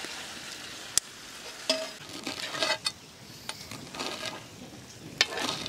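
Metal spatulas scraping and clacking on a large tawa as a thick chicken liver curry is turned, with several sharp clacks, over a faint sizzle.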